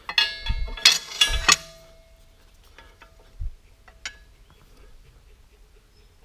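A steel square being set against a freshly milled angle plate: a quick cluster of sharp metallic clinks with a short ringing tone, then a few light taps about three and four seconds in.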